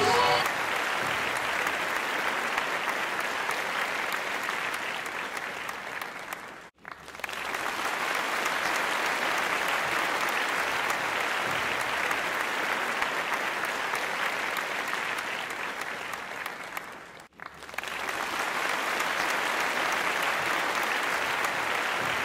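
Steady applause, cutting out briefly twice, about a third and three quarters of the way through.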